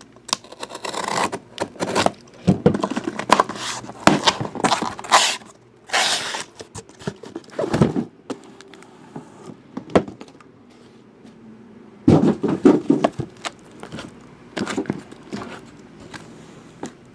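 Tape-wrapped cardboard box of trading cards being handled and opened: bursts of scraping and rustling as the tape and cardboard are worked loose, with short pauses between.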